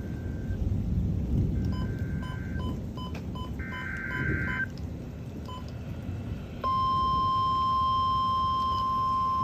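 Emergency alert signalling over a weather radio: three short buzzy SAME data bursts and a run of short beeps, then about two-thirds in a loud steady 1050 Hz attention tone begins, the signal that a warning message is about to be read. Low storm rumble continues underneath.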